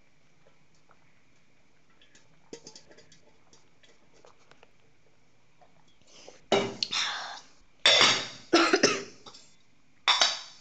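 A person coughing hard several times in quick bouts, starting about six and a half seconds in, with a last cough near the end.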